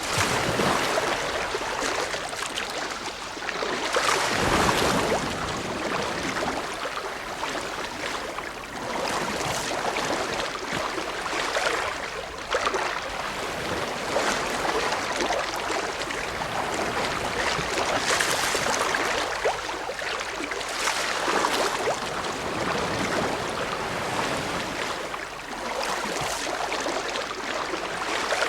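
Ocean waves breaking and washing on the shore in a continuous rush, swelling into louder surges every few seconds.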